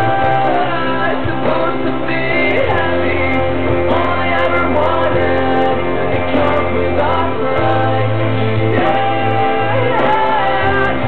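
A song: a voice singing a melody over an instrumental backing track with sustained bass notes.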